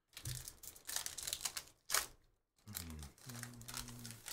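Trading cards and foil pack wrappers being handled, a dense rustling and crinkling with one sharp louder crackle about two seconds in. A low steady hum comes in over the rustling in the second half.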